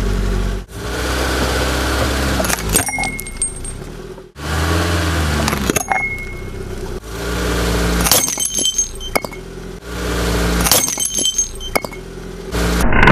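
A car engine running low while its tyre rolls over objects, with sharp cracks and crunches as they break under it. The sound comes in about five short takes, each cut off abruptly before the next begins.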